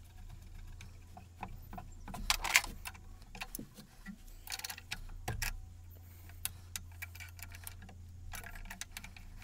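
Metal-on-metal clicks and clinks from a wrench and small steel parts as the cross-slide feed screw is fitted on a lathe saddle, in irregular clusters with the loudest clinks a little over two seconds in and about five seconds in. A steady low hum runs underneath.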